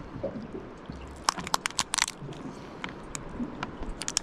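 Knife cutting lengthwise through a crayfish (spiny lobster) shell to split it in half: a run of sharp cracks and crunches, thickest about a second in and again near the end.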